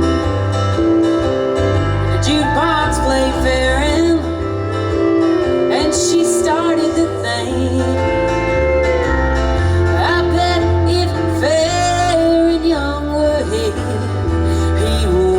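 Country band playing an instrumental break: a lead guitar line with sliding, bending notes over a steady bass and rhythm accompaniment.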